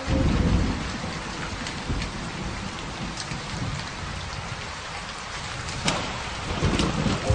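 Steady rain falling, with a low rumble of thunder at the start and another near the end. A few sharp crackles from the fireplace logs, one clear pop about six seconds in.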